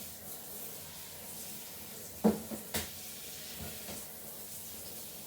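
Plastic dishwasher part knocking against the tub as it is pushed into place: two sharp knocks a little over two seconds in, then a few fainter clicks.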